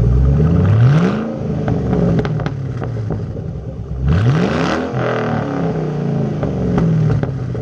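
Straight-piped Roush Mustang supercharged V8 exhaust with the mufflers deleted, at idle and revved twice: the pitch rises sharply about half a second in and again about four seconds in, each time sinking back to idle, with sharp crackles as the revs come down.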